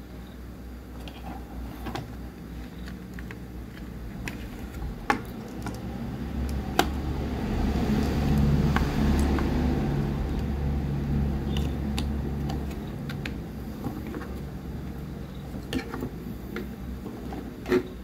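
Light clicks and taps of an electric-bike charger's circuit board and parts being handled, with a low engine rumble that swells up around the middle and fades away.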